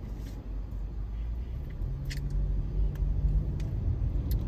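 Low steady rumble inside a car's cabin, with a faint hum joining in a little under two seconds in and a few faint clicks.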